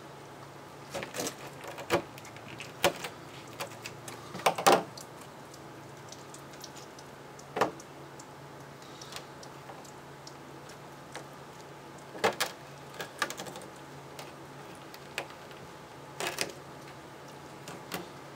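Knife quartering a dressed squirrel on a plastic cutting board: irregular sharp clicks and knocks of the blade against the board and through the joints. The loudest knocks come in a cluster about four and a half seconds in.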